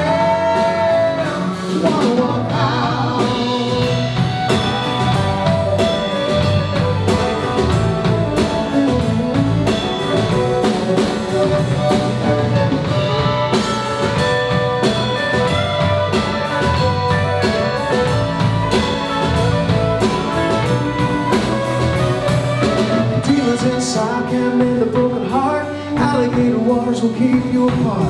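Country rock band playing live: drum kit, bass, electric and acoustic guitars, with the fiddle carrying an instrumental break.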